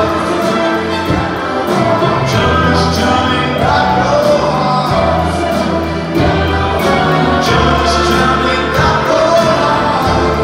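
A live rock band playing with an orchestra behind it: electric guitar, upright bass and piano over a steady drum beat.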